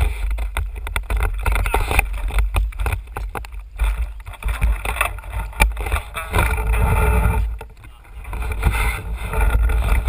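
Low rumble and repeated knocks of handling noise from a camera mounted on a landing-net pole as the net is moved through water and lifted out with a fish.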